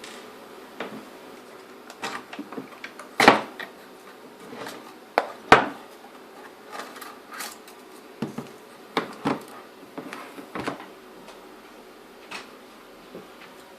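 Irregular clicks and knocks of hands and a tool handling a car sat-nav unit while its front panel is undone and worked free, with two louder knocks about three and five and a half seconds in.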